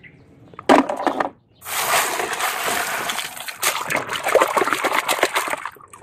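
Water splashing and sloshing as plastic toy trucks are moved through it: a short splash about a second in, then about four seconds of continuous splashing.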